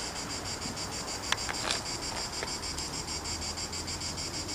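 Insects chirping steadily in a fast, even pulse, with a few light clicks about a second and a half in.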